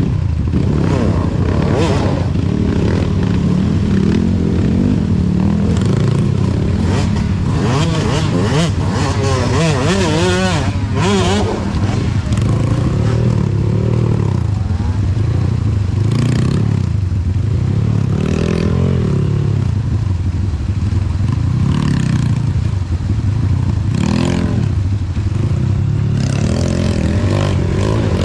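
Trail motorcycle engine revving up and down again and again, in surges every second or two, as the bike is worked over rough terrain, with clatter and scraping mixed in.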